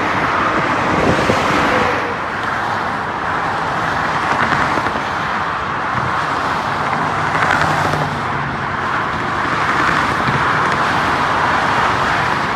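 Steady freeway traffic noise: the tyre and engine roar of many cars passing on the lanes below, rising and falling a little as vehicles go by.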